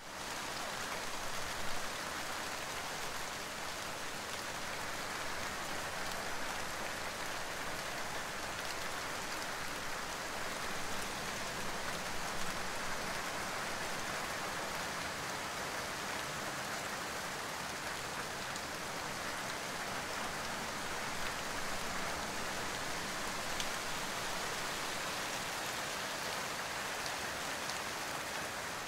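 Steady rain falling on broad leaves: an even, unbroken hiss of drops.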